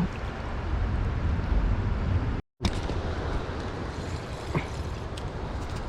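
Steady rushing water of a river, with low wind rumble on the microphone. The sound cuts out for a moment about two and a half seconds in.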